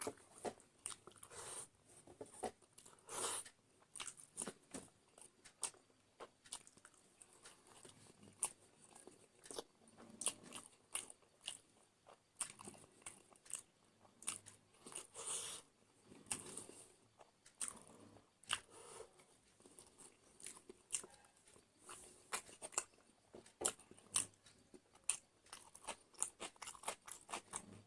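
A person chewing and biting food close to the microphone: irregular crunchy bites and wet mouth clicks, quickening near the end.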